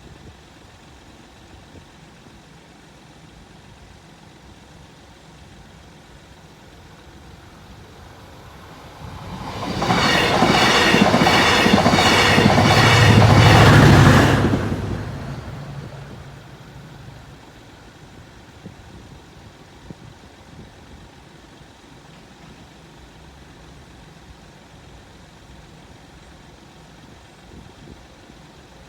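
A TransPennine Express passenger train passes the level crossing at speed about nine seconds in. Its wheels click rapidly and evenly over the rail joints for about five seconds, then the sound fades quickly, leaving a steady low background.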